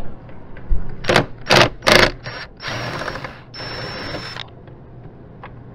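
Ryobi cordless drill/driver running in three short trigger bursts, then two longer runs of about a second each with a steady motor whine, working the fasteners on a plastic body panel.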